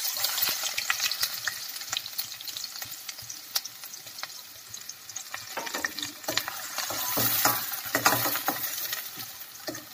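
Chopped onions sizzling in hot oil in a stainless steel pan, loud at first and fading over the first few seconds. A spatula stirs and scrapes them against the pan, and the sizzle comes up louder again around seven to eight seconds in.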